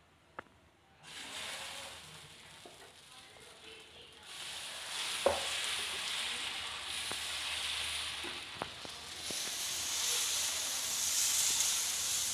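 Moong dal dosa batter sizzling on a hot griddle: the hiss starts suddenly about a second in and grows louder twice as it cooks. A sharp knock about five seconds in.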